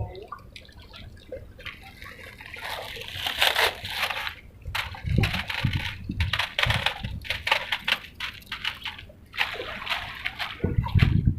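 Water splashing and sloshing in irregular bursts, louder from about two and a half seconds in.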